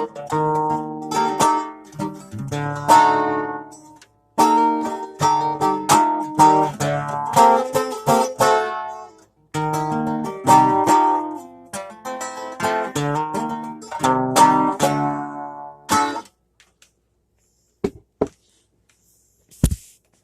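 A plucked string instrument played solo: strummed chords and picked notes in short phrases that ring and die away. The playing stops about four seconds before the end, followed by a few sharp knocks.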